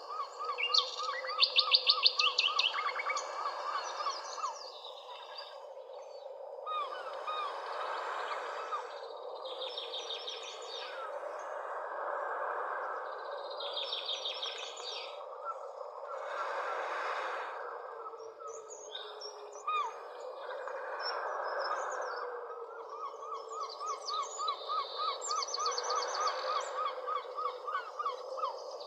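Several birds chirping and calling at once, with rapid runs of repeated trilled notes, over a steady background hiss.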